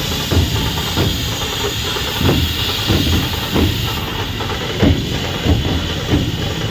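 Steady hiss under a slow, uneven run of low drum beats.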